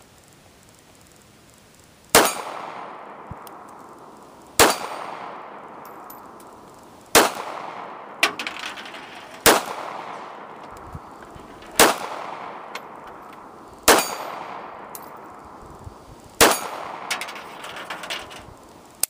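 Ruger LCP .380 pocket pistol fired seven times at a slow, even pace, about one shot every two and a half seconds. Each sharp report is followed by a long echo that dies away.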